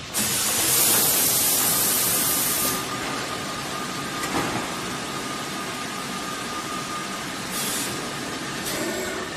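Automatic plastic vacuum forming machine running: a loud hiss of air for the first two and a half seconds, then steady machine noise with a faint high whine, a shorter hiss near the end and a click.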